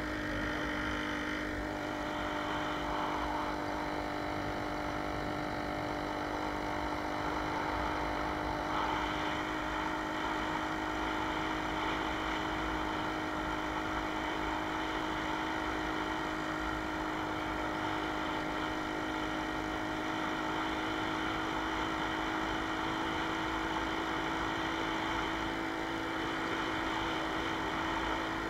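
Jawa 20 Pionýr moped's 50 cc two-stroke single-cylinder engine running at a steady cruising speed while being ridden, heard from the rider's camera.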